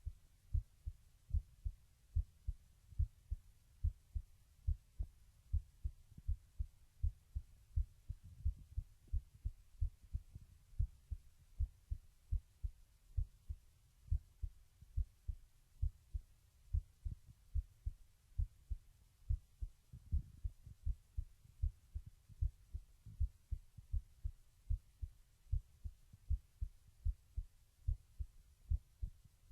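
A teenage boy's heartbeat recorded close up through a microphone: a steady rhythm of low, dull thumps, often heard as lub-dub pairs, about one beat a second, over a faint hum.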